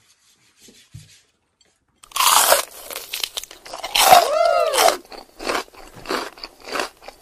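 Close-up sounds of a person biting and chewing a braised chicken foot (adobo), wet crunching at the skin and cartilage. It starts about two seconds in after a near-quiet pause and is loudest around four seconds.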